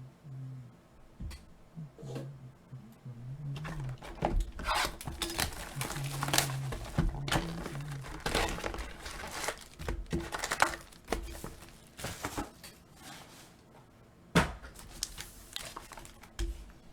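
Foil trading-card pack wrappers being torn open and crinkled, in long runs of crackling, with a single thump near the end.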